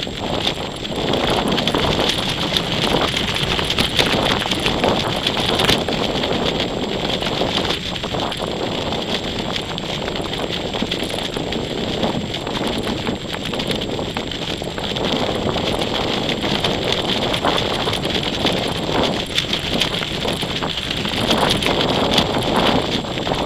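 Wind buffeting the microphone of a small camera riding on a kite, with the kite's fabric fluttering and rattling against it in quick irregular taps. A steady high-pitched whine runs underneath.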